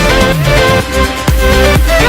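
Background electronic dance music with a steady beat and synth melody, briefly thinning out about a second in.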